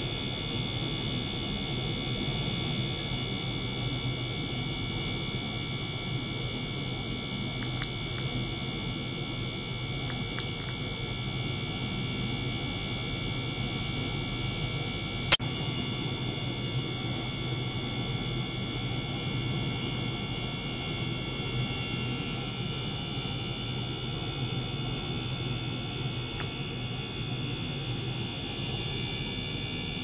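Small motor-driven pump circulating water through a test tank, running steadily: a low hum under a hiss with several steady high-pitched whines. One sharp click about halfway through.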